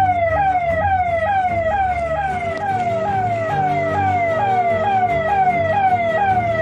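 Electronic siren: a tone that jumps up and slides down over and over, a little more than twice a second, over background music.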